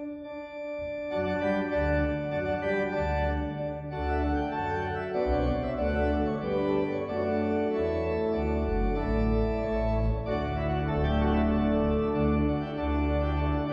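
Organ music: slow, sustained chords over held bass notes that change every second or two.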